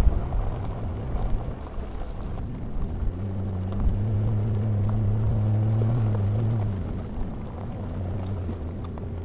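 Off-road vehicle driving, its engine making a low steady hum that grows louder from about three seconds in and eases back near the end, over a rumble, with a few low knocks at the start.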